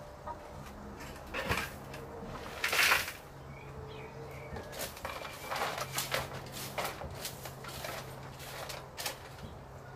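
Hens clucking softly while someone cleans the chicken run, with rustling, scraping and knocking of mulch and plastic buckets; the loudest is a scrape or bump about three seconds in.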